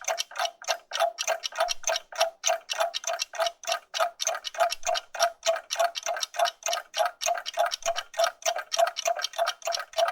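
Several clocks ticking at once, not in step, making a dense, uneven run of about four or five ticks a second.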